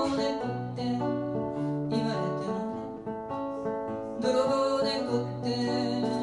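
A woman singing to her own acoustic guitar accompaniment, a steady run of picked notes and chords.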